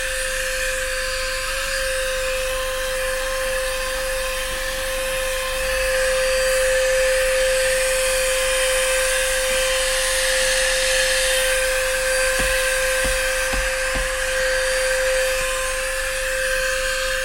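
12-volt GoMechanic Neutron 4500 handheld car vacuum cleaner running steadily, its motor giving a constant high whine over a rushing hiss. A few light knocks come in the second half.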